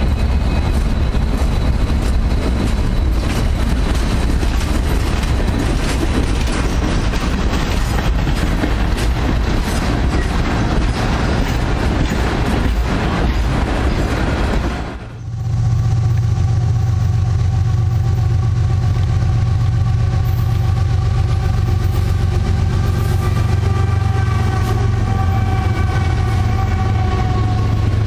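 Freight train cars rolling past close by: a loud, steady rumble and rattle of steel wheels on the rails, with fine repeated clicks. The sound dips briefly about halfway through, then carries on as a steadier low hum with faint ringing tones above it.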